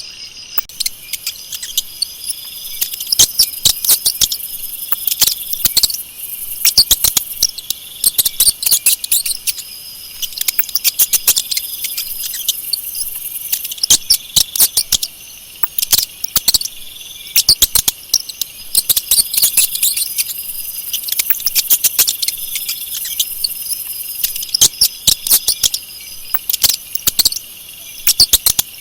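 Mice or rats squeaking: rapid, very short high-pitched chirps that come in dense bursts every few seconds, over a steady high-pitched background.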